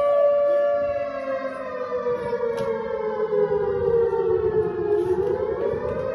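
Air-raid warning siren wailing: its pitch holds steady, slides slowly down over about four seconds, then starts rising again near the end. It sounds the alarm for a mock air-raid drill.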